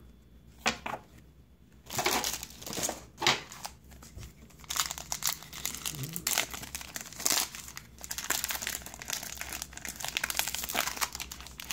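Topps WWE SummerSlam trading card pack wrapper crinkling as it is handled and opened by hand, a dense run of crackles starting about two seconds in.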